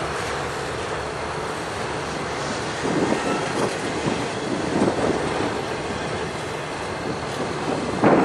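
Intermodal freight train's container cars rolling slowly past on steel rails: a steady rumble of wheels, with irregular clacks and clanks from about three seconds in and the loudest clank near the end.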